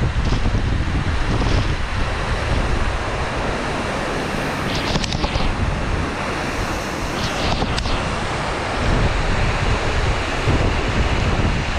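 Waterfall rushing steadily, with wind rumbling on the microphone. Twice a brief, brighter hiss swells over it.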